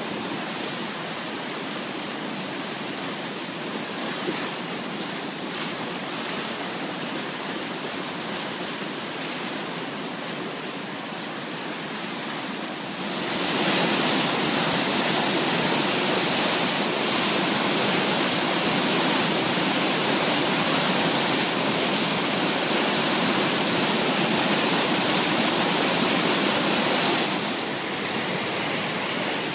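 The Úpa river in flood, its brown water rushing and churning over standing waves in a steady rush of noise. The rush gets louder and hissier a little under halfway through and drops back near the end.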